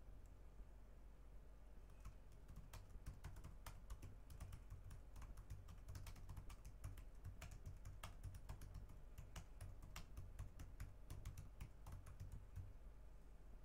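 Computer keyboard typing: quick, irregular keystrokes that stop about a second before the end, over a faint steady low hum.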